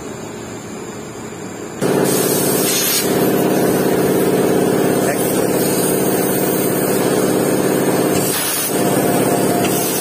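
Engine running steadily with an even hum, loud from about two seconds in after a sudden jump in level; before that, a steady hiss.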